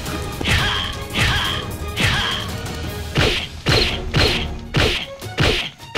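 A run of punches and blows landing in a staged fistfight, each a sharp whack with a swish. There are three at first, about three-quarters of a second apart, then a quicker flurry of about five.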